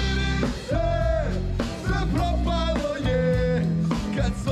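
A street band playing live, with a singing voice over trumpet, guitar and a steady bass line.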